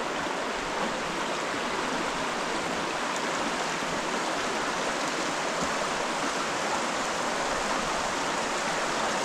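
The Bode, a rocky mountain river, rushing steadily over stones.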